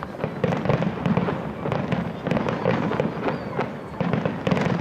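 Fireworks display: a dense, unbroken run of crackling pops and bangs, growing louder about a second in and again near the end.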